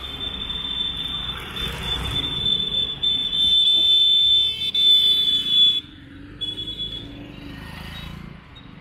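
A loud, steady, high-pitched buzzing tone over street traffic. It cuts off suddenly about six seconds in, comes back briefly, then fades.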